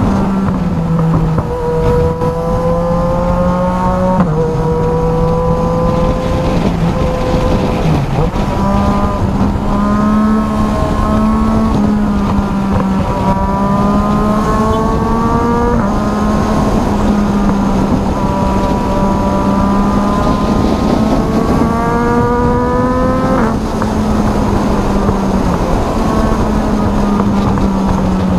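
Motorcycle engine under hard acceleration, its pitch climbing with the revs and dropping sharply at each upshift, several times over, above a steady rush of wind and road noise.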